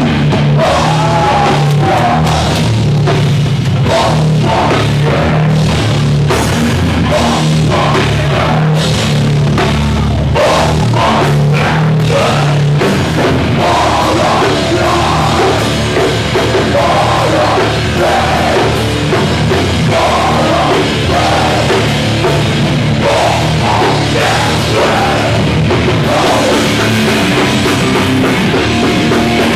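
Hardcore band playing live and loud: distorted electric guitars and bass chugging a low riff over fast, pounding drums.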